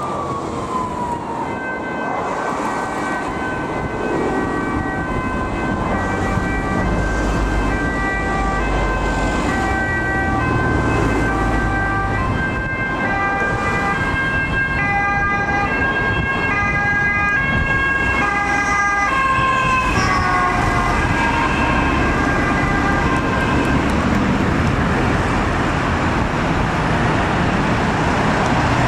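Police car siren sounding over city traffic, stepping back and forth between two pitches, with a steady high tone held underneath. About twenty seconds in it winds down with a falling tone, leaving the steady noise of road traffic.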